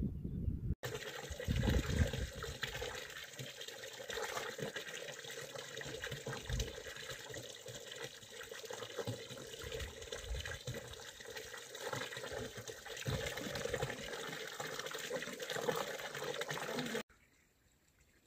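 Spring water running from the pipe spout of a stone mountain fountain and splashing into its stone trough as a steady rush. It starts about a second in and cuts off suddenly near the end.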